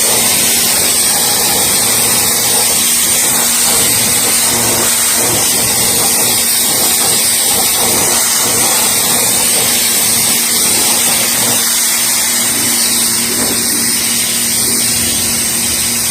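Sun Joe SPX4000 electric pressure washer running, its water jet hissing steadily as it blasts dirt off a car wheel rim, with a steady motor-and-pump hum underneath.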